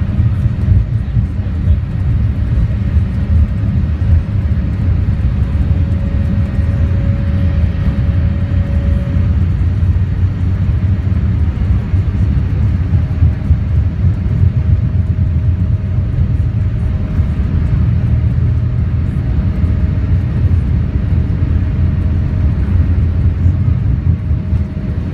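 Boeing 787 Dreamliner heard from inside the passenger cabin during take-off: a loud, steady low rumble of engines and airframe, with a faint steady tone above it.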